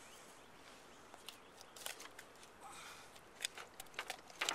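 Faint clicks, snips and taps of a knife cutting through a fish's gills to bleed it, with the fish handled in the hands. The clicks start about a second and a half in and come more often toward the end.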